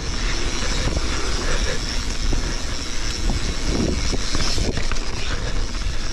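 Steady wind noise on a handlebar- or chest-mounted action camera's microphone as a mountain bike rolls fast down a dirt trail, mixed with the tyres running over loose dirt and small stones. A few small knocks from the bike come through around the middle.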